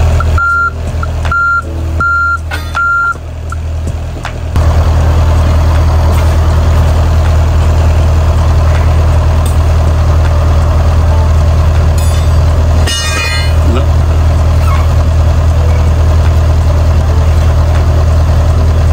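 John Deere 50G compact excavator's diesel engine running as the machine is walked to draw a new track onto its undercarriage. Its travel alarm beeps about once a second for the first three seconds, and the engine gets louder about four seconds in. A brief metallic clatter comes about two-thirds of the way through.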